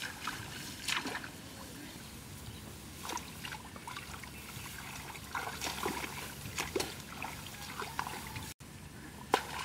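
Irregular small splashes and sloshes of shallow water as people wade and grope with their hands through a flooded rice paddy, with a sharper click near the end.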